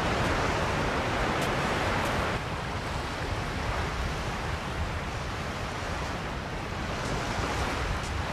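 Sea surf and wind on an open beach: a steady rushing hiss of breaking waves over a low rumble of wind on the microphone. The hiss eases a little about two seconds in.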